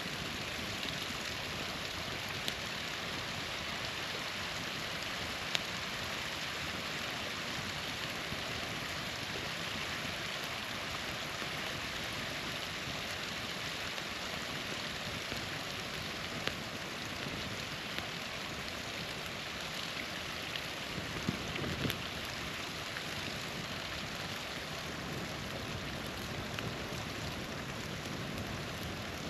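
Small waterfall rushing steadily, with a few sharp pops and crackles from a campfire, including a brief cluster of them about three-quarters of the way through.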